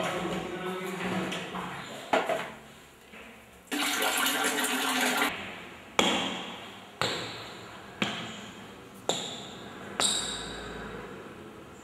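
Five sharp knocks, one a second, each ringing out briefly, after a burst of rushing noise about four seconds in; music fades out in the first two seconds.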